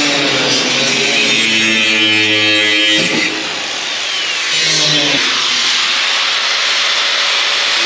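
Backing music with guitar plays over the steady high hiss of grinders cutting through sheet metal, the grinder pitch sliding down now and then as the disc loads up.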